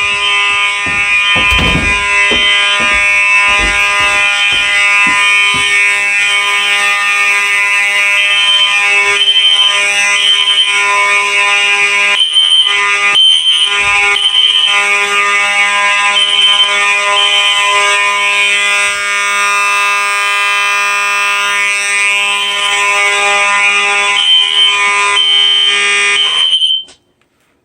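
Faraday 6226HS and System Sensor SpectrAlert Classic P1224MC fire alarm horn strobes sounding together: a loud, steady, continuous horn tone that cuts off suddenly near the end.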